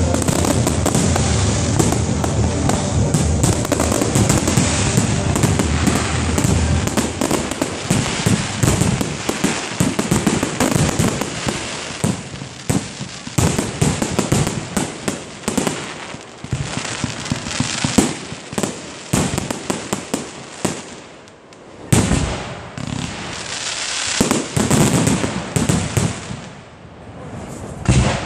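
Fireworks display: a dense barrage of aerial shells bursting with bangs and crackle, thinning about a third of the way in to separate reports and crackling, with one sharp bang a little past three quarters through.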